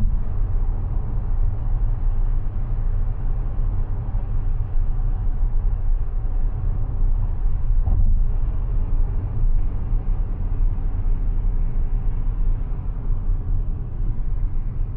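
Mazda 6e electric sedan on the move: a steady low rumble of road and tyre noise, with a short bump about eight seconds in.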